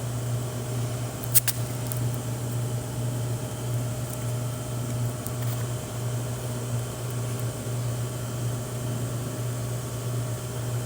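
Car power steering pump whining steadily with the engine running, a constant low hum with a fixed higher tone over it; a single sharp click about a second and a half in.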